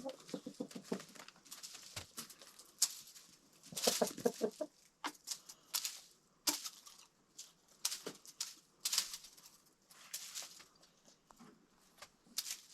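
Domestic hens clucking in short quick runs, at the start and again about four seconds in. Between them come many sharp ticks and rustles of the birds pecking at a hung bunch of dried nettle stalks.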